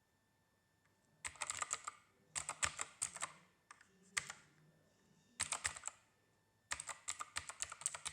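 Typing on a Keychron K2 mechanical keyboard with clicky blue switches: quick runs of sharp key clicks in about five short bursts, with brief pauses between them.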